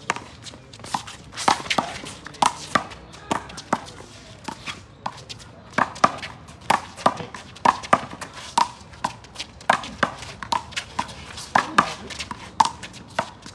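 One-wall handball rally: a small rubber handball slapped by bare hands and smacking off the concrete wall and court. It makes a string of crisp smacks, coming one to two a second.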